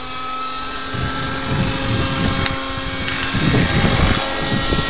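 Homemade helicopter's motor running with a steady whine, with an irregular low rush of air coming in about a second in and growing strongest around three to four seconds.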